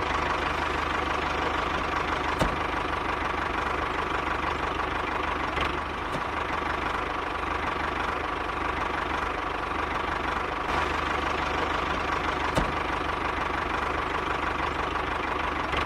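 Tractor engine idling steadily with a fast, even low knock.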